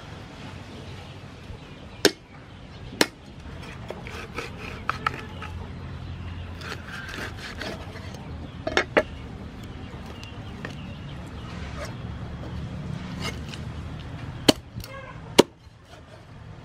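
Cleaver chopping raw chicken on a round wooden chopping board: six sharp knocks at irregular intervals, two of them close together near the middle, with quieter cutting and knocking between.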